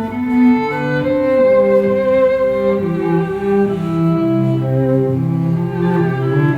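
Bowed string music, cello with violins, in slow sustained overlapping notes, played back through Edifier 1280 bookshelf speakers driven by an FX Audio Tube 03 preamp in a sound test.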